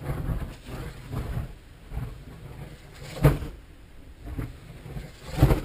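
Kinetic K2M dynamic-soaring model glider passing at very high speed, giving two sharp, brief whooshes, one about three seconds in and one near the end. Between the passes, gusty wind rumbles on the microphone.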